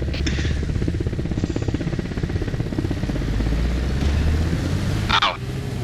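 A person panting hard and gasping for breath after intense cardio, a rapid, fluttering low rumble of breath, with a sharper hissing gasp a little after five seconds in.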